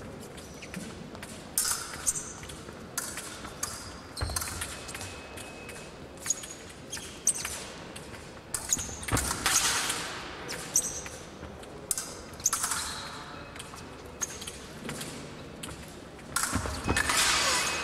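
Épée fencing bout in progress: quick footwork stamps and squeaks on the piste, with short metallic rings and clinks of blades meeting. There are a few longer noisy bursts, the longest near the end.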